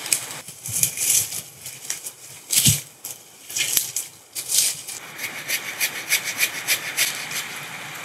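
Hand saw working through the wood of a fallen tree, with irregular scraping and cracking of branches at first and a low thud about two and a half seconds in, then quick, even saw strokes, about three or four a second.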